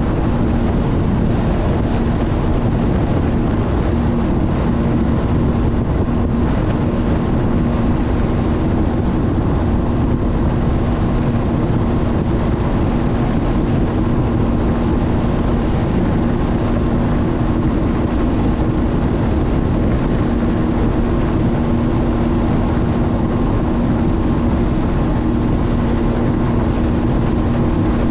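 Sea-Doo personal watercraft running at a steady speed: a constant engine and jet-pump drone that holds one pitch throughout, with wind rumbling on the microphone.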